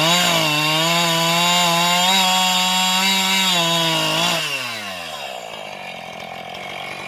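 Two-stroke chainsaw held at full throttle while cutting firewood, its pitch steady with slight dips, then released about four seconds in and winding down to idle.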